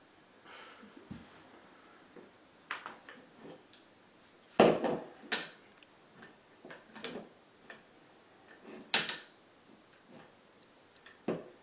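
Scattered light knocks and clatters of a plastic toy bucket and its handle being handled on wooden floorboards, with a few sharper knocks about halfway through and again a few seconds later.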